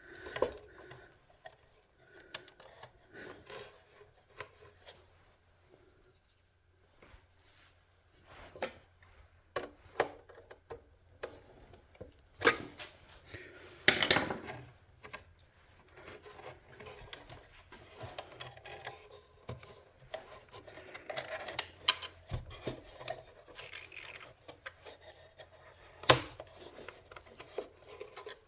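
Hands working on mains wiring at a workbench: scattered small clicks, taps and rubbing as wires and small parts are handled and fitted. A few sharper knocks stand out, about halfway through and again near the end.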